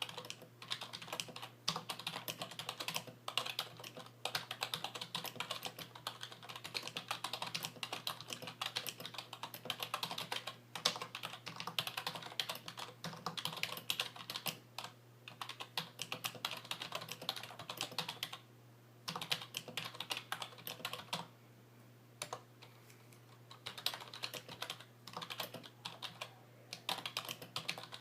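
Fast typing on a 1996 IBM KB8923 rubber dome membrane keyboard with lubed keys and stabilizers: a dense, rapid run of keystrokes that breaks off briefly about two-thirds of the way through before picking up again.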